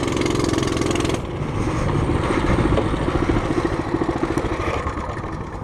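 Coleman CT200U-EX mini bike's small single-cylinder four-stroke engine running at low speed under light throttle. It eases off slightly about a second in, then holds steady.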